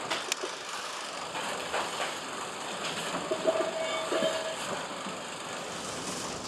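Wooden slats knocking and rattling against each other as a stack of them is stepped on and handled, with a few sharp knocks over a steady background hiss.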